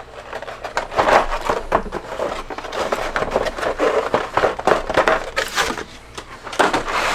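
Clear plastic blister cover being pulled off a moulded plastic accessory tray, crinkling and crackling with many irregular small clicks.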